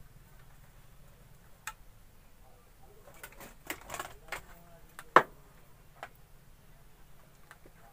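Sparse small clicks and taps of a thin metal tool working the pins out of a small plastic multi-pin wire connector. The clicks come singly and in a short cluster, the sharpest one about five seconds in. A low steady hum runs underneath.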